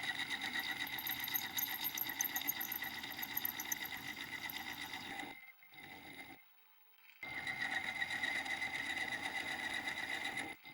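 Small benchtop machine tool running with a steady whine and a fast, even chatter; it drops out about five seconds in and starts again about two seconds later.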